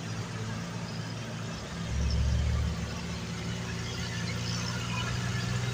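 Mitsubishi L300 pickup's engine running steadily, with a deeper low rumble swelling for about a second, two seconds in.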